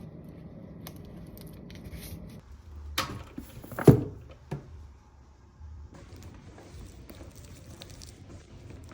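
A few sharp knocks and clatters of objects being handled, the loudest about four seconds in, over a low steady hum.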